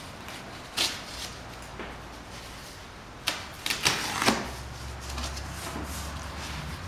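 Utility knife slicing through packing tape on a cardboard box, then the cardboard flaps being pulled open: short sharp rasps about a second in and a cluster of them a little past the middle.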